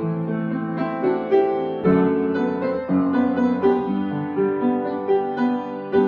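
Background piano music: notes and chords struck in a steady, unhurried succession.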